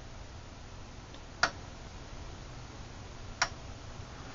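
Two sharp clicks, about two seconds apart, from the detented rotary TIME/CM time-base selector of a Leader LBO-508A oscilloscope being turned, over a faint steady hiss.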